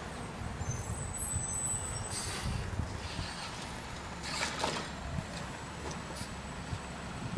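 Distant garbage truck running, with two short air-brake hisses about two and four and a half seconds in, over a fluctuating low rumble on the moving microphone.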